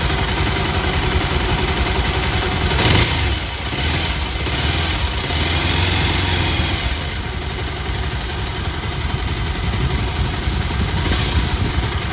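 Bajaj Pulsar 220's single-cylinder engine idling steadily, briefly louder about three seconds in. It runs without the tick-tick of a loose timing chain, now that a new cam chain tensioner is fitted.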